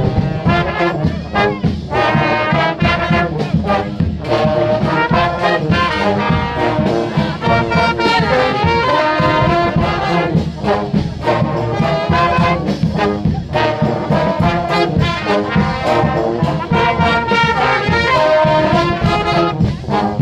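Street brass band playing, horns over a steady beat.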